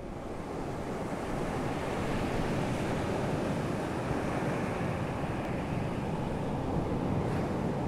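Steady, muffled rush of water heard underwater through a GoPro in its waterproof housing, swelling over the first couple of seconds and then holding even.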